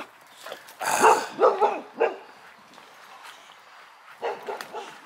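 Dog barking: a quick series of barks between one and two seconds in, then a shorter burst about four seconds in.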